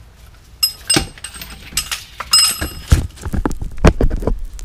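Metal hand tools clinking with a bright ringing tone, twice, about half a second and two seconds in, then a quick run of dull knocks and thuds.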